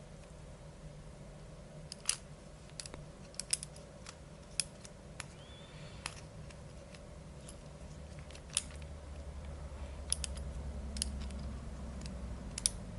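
Irregular light clicks and taps from small 3D-printer Z-axis parts and tape being handled and fitted by hand. A low hum comes up about eight seconds in.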